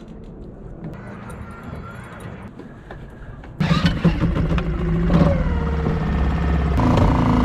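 Suzuki 2.5 hp four-stroke outboard pull-started, catching suddenly about three and a half seconds in and running steadily, freshly put back together after a carburettor clean. Its note changes near the end.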